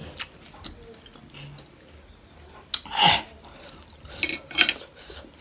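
Close-miked eating of panipuri: crisp puri shells cracking with a few sharp crunches, with wet sounds of the tangy water in the mouth. The loudest crunch comes about three seconds in, and a quick cluster follows near the end.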